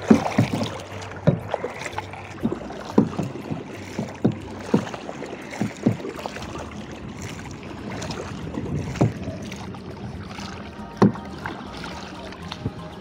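Tandem kayak being paddled: the paddle blades dip and splash into the water at an irregular pace, roughly once a second, over steady water lapping against the hull.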